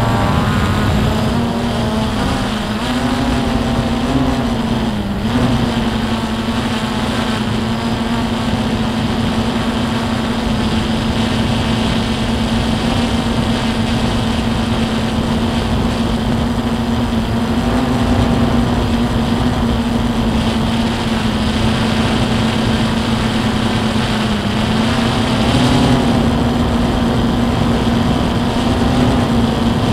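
A drone's electric motors and propellers buzzing steadily in flight, their pitch wavering briefly a few times as the throttle changes.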